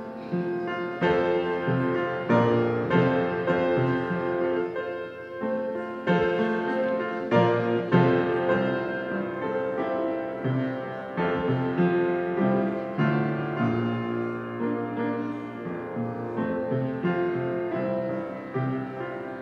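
Slow piano music, with new notes struck about once a second.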